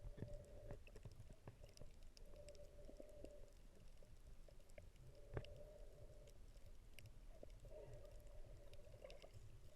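Near silence, with faint scattered clicks and ticks, one a little louder about five seconds in.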